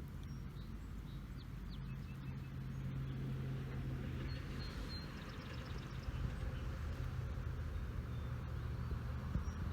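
A motor vehicle's engine running in the distance as a steady low hum, swelling a little partway through, with faint bird chirps now and then.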